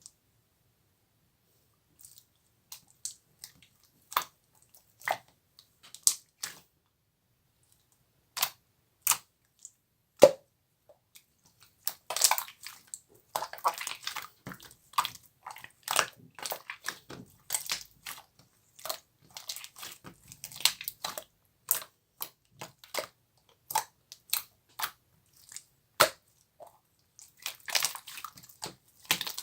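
Slime being squeezed and pressed by hand: irregular sticky clicks, pops and squelches, sparse at first and then coming thick and fast from about twelve seconds in.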